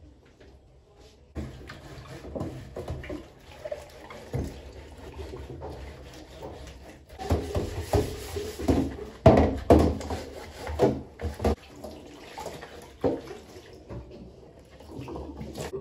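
Water running in a kitchen sink while utensils are washed, with repeated knocks and clatter. The knocking is heaviest in the middle stretch.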